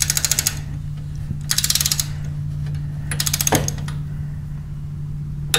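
Click-type torque wrench ratcheting in three quick bursts of rapid clicks as it runs the transmission drain plug tight, then one sharp click near the end as the wrench breaks at its 19 ft-lb setting.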